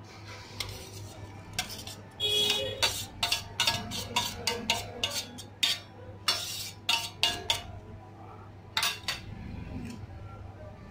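Steel spoon knocking and scraping against a stainless-steel mixer-grinder jar as soaked rice is spooned in: a run of sharp metallic clinks, a few ringing briefly, from about two seconds in, then a couple more near the end.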